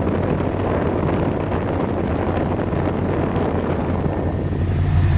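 A loud, even rushing noise like wind across the microphone, with the 1969 Camaro's 427 big-block engine running underneath it.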